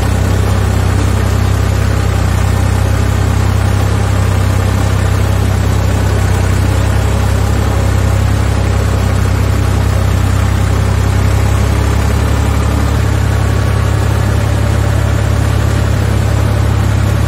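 A Massey Ferguson 255 tractor's diesel engine running steadily at a constant engine speed, heard close up while the tractor drives over a rough, stony farm track.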